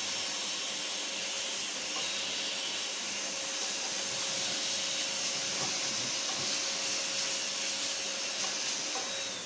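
Riino R8 cordless cyclone stick vacuum running on its second, more powerful suction setting: a steady rush of air over the motor whine. Right at the end it is switched off and the whine falls away.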